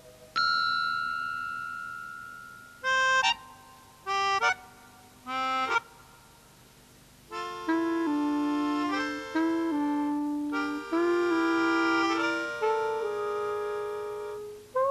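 Incidental music from a reed instrument like an accordion. A single held note fades away, three short chord stabs follow, then a run of held chords that change from note to note plays from about halfway through.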